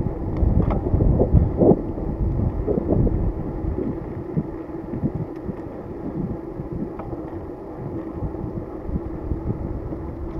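Wind buffeting the microphone of a camera riding along on a moving bicycle, with a steady low hum under it. The gusts are strongest in the first couple of seconds and settle somewhat after.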